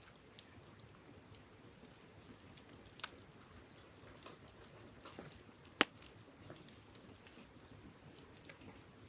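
Wood campfire crackling: scattered small snaps and ticks, with one sharp, louder pop a little before six seconds in.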